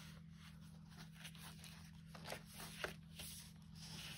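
Faint rustling and a few soft ticks of paper and fabric-covered pages being turned by hand in a handmade mixed-media journal, over a low steady hum.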